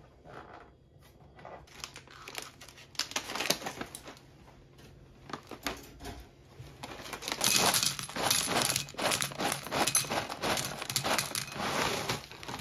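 Foil inner bag of a box of cereal being handled, opened and crinkled, then dry cereal pieces poured from it into a ceramic bowl. A crackly rattle of crinkles and small hits, sparse at first and denser and louder in the second half.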